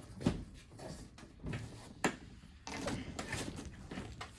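A few light knocks and clicks of something being handled, the clearest near the start and about two seconds in, over a low background rumble.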